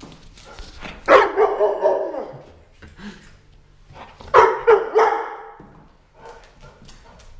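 German shorthaired pointer barking in two short bursts of about three barks each, one burst about a second in and another about four and a half seconds in. Between the bursts its claws click faintly on the tile floor.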